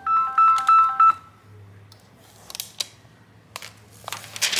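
A quick run of electronic beeps at a few different pitches, lasting about a second. Then short crackling rustles of plastic film or tape being peeled off a replacement laptop LCD panel.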